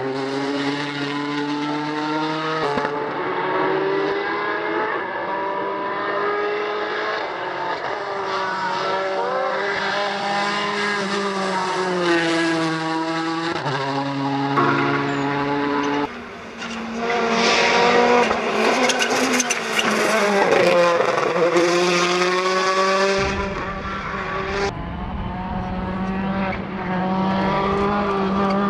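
Hyundai i20 Coupe WRC rally car's turbocharged 1.6-litre four-cylinder engine at full effort, the note rising and dropping again and again through hard acceleration and gear changes, in several short passes cut one after another.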